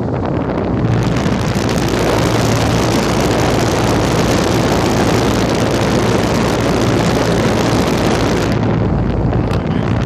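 Air conditioner's outdoor condenser unit running: its fan's exhaust air blowing across the microphone as a loud, steady rush over a steady low hum. The rush grows stronger about a second in and eases back near the end.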